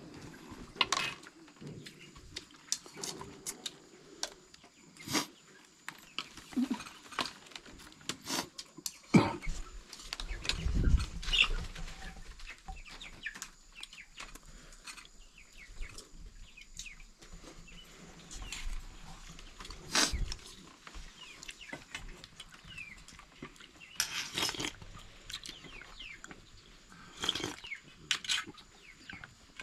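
Spoons and plates clinking and knocking now and then during a meal, with faint bird calls in the background.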